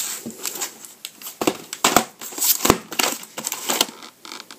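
Plastic VHS clamshell case being handled and opened, with a string of irregular clicks, taps and rubbing as the videotape is slid out of it.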